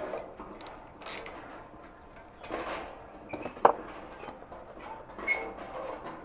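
Wrench working the nuts that hold a camp stove's burner assembly: scattered metal clicks and scrapes, with one sharp click a little past halfway.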